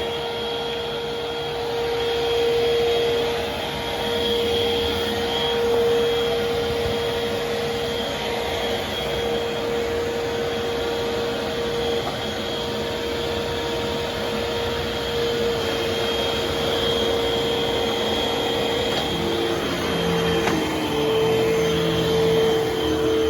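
Vacuum cleaner running steadily while vacuuming a floor, its motor whining at a constant pitch, the level swelling slightly as it is pushed back and forth.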